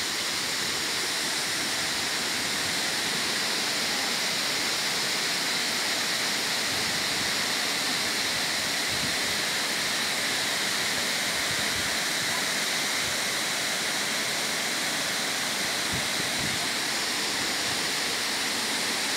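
Steady, unbroken rush of Pongour Falls, a wide waterfall spilling down many rock ledges.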